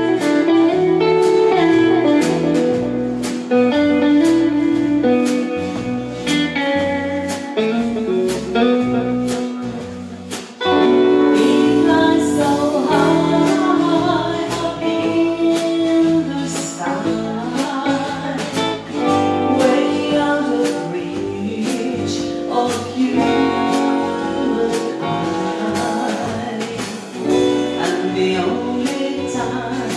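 Live rautalanka band playing over the PA: electric guitar, bass and a steady drum beat, with a woman singing. The music drops away briefly about ten seconds in, then comes straight back in.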